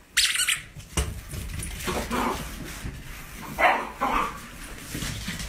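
A small dog, most likely the dachshund puppy seen in the clip, barks and yips several times in short calls. There is a brief sharp high-pitched noise just after the start.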